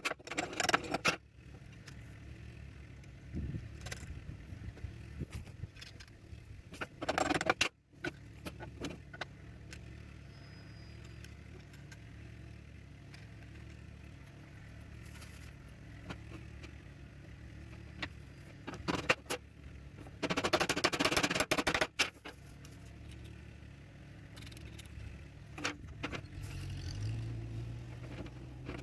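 Workshop sounds of wooden folding-chair parts being worked and assembled: scattered knocks, taps and scrapes of wood, with a few louder bursts of clatter, the longest lasting about two seconds near the end. A steady low hum runs underneath.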